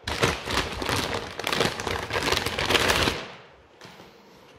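Clear plastic bag crinkling and rustling as a pistol is pulled out of it, dying away about three seconds in.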